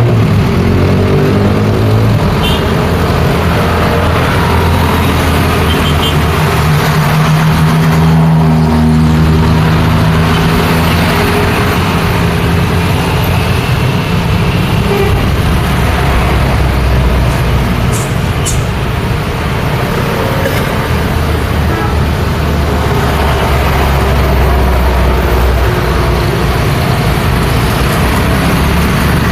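Busy road traffic passing close by: trucks, buses, cars and motorcycles, with the low, steady drone of heavy diesel engines strongest about a third of the way in. A horn toots briefly.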